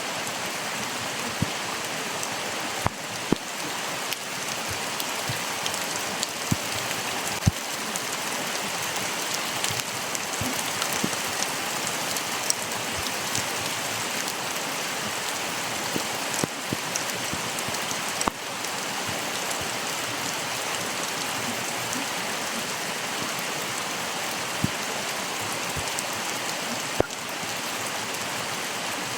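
Steady rush of running water across a wide range of pitch, dotted with frequent small, sharp drips and splashes.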